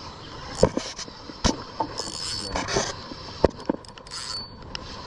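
Spinning reel being cranked in to bring a hooked fish to the boat, with sharp knocks and clicks of rod and hull handling scattered through.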